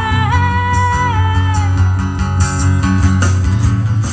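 Live band music over a PA: a woman singing a long held note that slides gently down, backed by guitars and drums. Then the voice drops out and the guitars and drums carry on.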